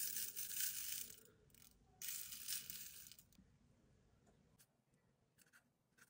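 Chunky glitter dip powder pouring from a jar onto a swatch stick and a paper cupcake liner: a grainy hiss of falling particles in two stretches of about a second each, followed by a few faint ticks.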